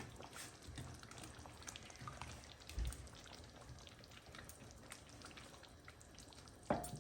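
Oxtail sauce with stock cooking in a pan on a gas hob: a faint, even crackle of small pops and sizzles, with one soft knock about three seconds in.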